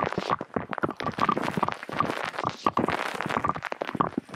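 Plastic film canisters clattering close to the microphone: a rapid, irregular run of light clicks and knocks as they land and rattle against it.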